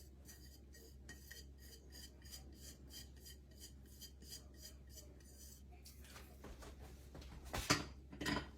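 Faint, quick light scraping and tapping, about four strokes a second, as dry seasonings are tipped and scraped from measuring spoons into a small dish. Two louder clinks of utensil on dish come near the end.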